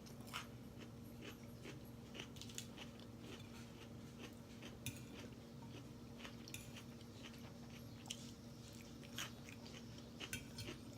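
Close-miked chewing and mouth sounds of someone eating, with small wet clicks and soft crunches scattered throughout. A faint steady hum runs underneath.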